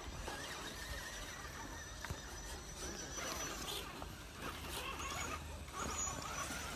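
Electric drive motor and gears of a scale RC rock crawler whining faintly as it crawls, the pitch wavering with the throttle, over a low rumble.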